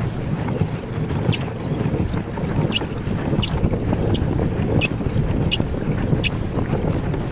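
Slippers squeaking against a pedal boat's pedals with each stroke, a short high squeak about every 0.7 seconds in an even rhythm. Underneath is a steady rush of wind on the microphone and churned water.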